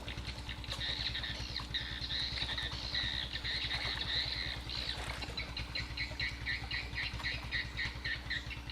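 A steady low engine hum, with high-pitched bird calls over it that become a rapid repeated chirping, about three or four a second, from about halfway through.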